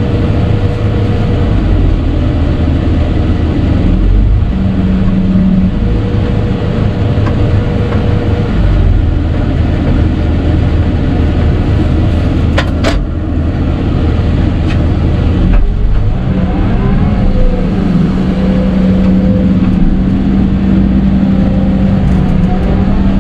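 Hidromek 220 LC excavator's diesel engine running steadily, heard from inside the cab, its note changing a few times as the hydraulics are worked. A couple of sharp clicks come about halfway through.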